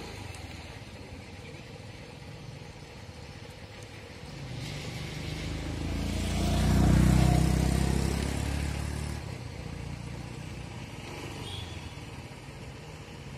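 A motor vehicle drives past, its engine growing louder to a peak about seven seconds in and then fading away.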